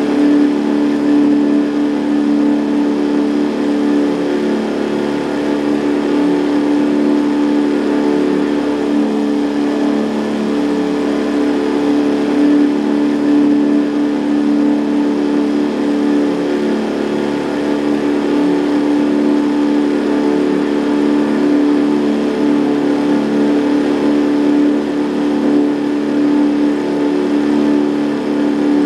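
Boat's outboard motor running at a steady, unchanging speed: a constant engine drone.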